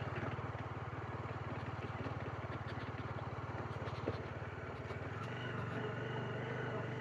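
Motorcycle engine running while riding, a fast even pulsing hum; about five seconds in the engine note changes and steadies.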